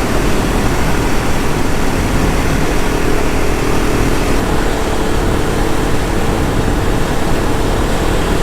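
Dual-sport motorcycle riding at a steady road speed: heavy wind rush on the microphone over a steady engine note.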